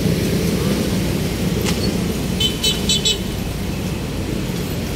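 Steady road traffic running, with three short high-pitched toots close together about two and a half seconds in.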